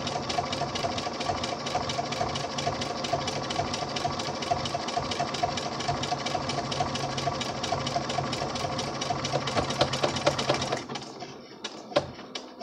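Sewing machine stitching a one-step automatic buttonhole with a fast, even run of needle strokes. Near the end it slows to a few separate stitches and stops automatically, which is the buttonhole cycle completing.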